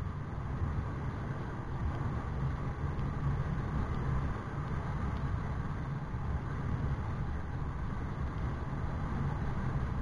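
Steady low rumble of a vehicle on the move: road and wind noise, with no distinct engine note.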